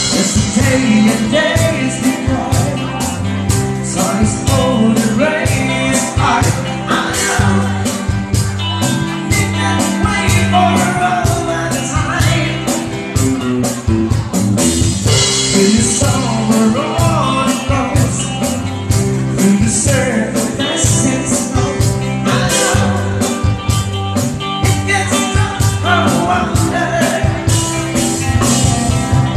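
Live cover band playing a pop-rock song without a break: steady drum-kit beat, bass and guitar, with a singing voice over them.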